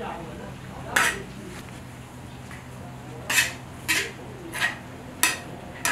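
Metal skimmer scraping against the steel cauldron while turning a large batch of plov rice. There are six short scrapes: one about a second in, then five in quick succession from about three seconds in.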